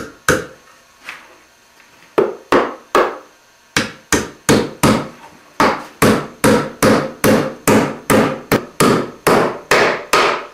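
Claw hammer driving nails through a western red cedar birdhouse's back into its roof. A few spaced taps come first to start the nails, then a steady run of blows at about three a second from about four seconds in.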